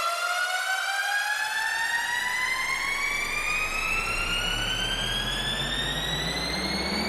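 Synthetic test tone played through a speaker, rising slowly and steadily in pitch with strong overtones, like a siren. Low bass tones come in underneath about a second and a half in, grow stronger around four seconds, and climb in steps.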